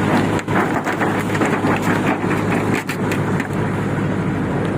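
Engine of a concrete mixer running steadily at a slab pour, with a constant low hum and a few clattering knocks.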